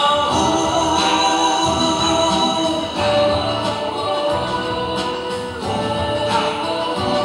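A Vietnamese pop song plays with sung vocals over a steady beat.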